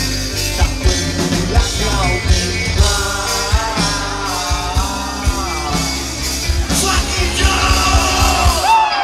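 A live band playing loud through a PA: drums, bass and electric guitar with a singer. The band stops just before the end.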